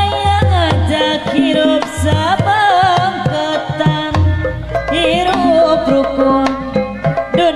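Live jaipongan music: kendang hand drums beating with deep, booming strokes under a bending, wavering melody and the gamelan ensemble.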